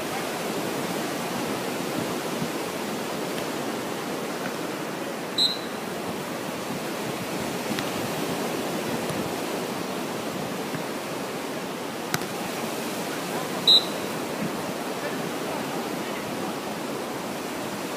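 Steady rushing noise of beach surf and wind on the microphone, with two short, loud high-pitched blips about eight seconds apart.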